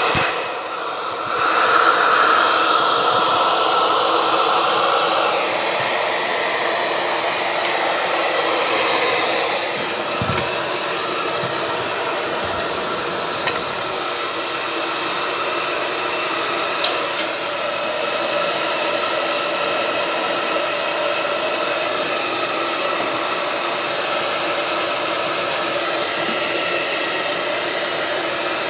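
Hot-air gun or hair-dryer-type blower running steadily, with a short dip in level right at the start.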